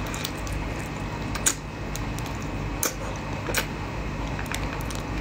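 Close-miked eating of a whole raw shrimp: the shell being bitten and chewed, with a few sharp crunches and clicks, the loudest about a second and a half in and others near three and three and a half seconds in.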